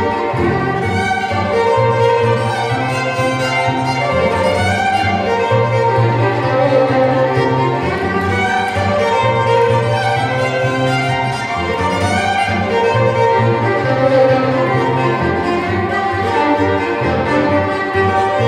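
Violin and double bass playing an Irish fiddle tune together: a quick-moving violin melody over a steady bass line, with no pause.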